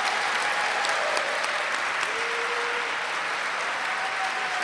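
Audience applauding: steady clapping from a large room of people.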